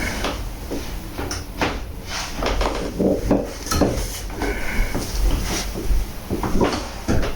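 Irregular knocks, clicks and rustling of a patient shifting position on a chiropractic treatment table.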